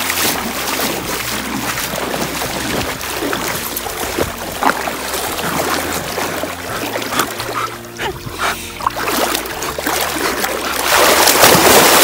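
Lake water splashing and sloshing as a dog swims with a frisbee in its mouth, loudest about eleven seconds in as it reaches the person in the water, with background music playing underneath.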